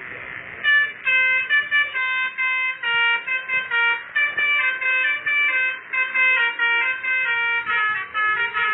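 Telolet basuri multi-tone horn playing a quick tune of short notes, several pitches sounding together, starting under a second in after a brief steady hiss.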